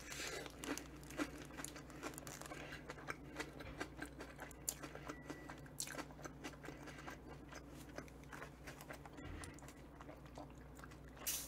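A person biting into and chewing a sandwich close to the microphone: many faint, small crunches and wet mouth clicks.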